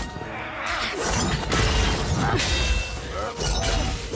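Movie fight sound effects: a rapid run of metal blade clashes and hard hits with shattering crashes, over orchestral score.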